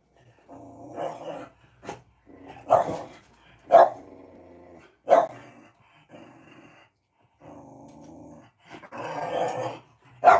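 A dog growling in long stretches, broken by several loud sharp barks, the loudest coming about a second apart in the middle.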